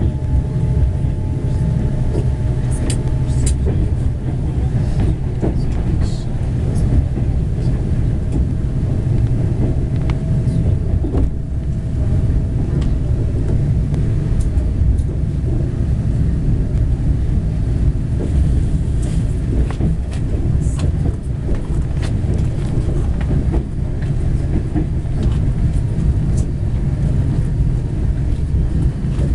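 Inside a moving passenger train carriage: the steady low rumble of the train running on the rails, with scattered short clicks and rattles. A faint steady whine comes in near the start and again about halfway through.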